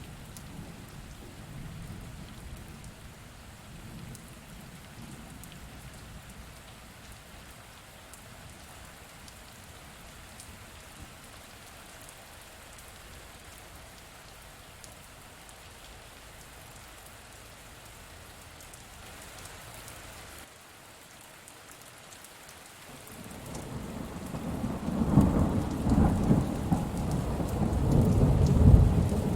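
Steady rain falling, with a low roll of thunder that builds in the last few seconds and becomes the loudest sound. A fainter rumble of thunder sounds near the start.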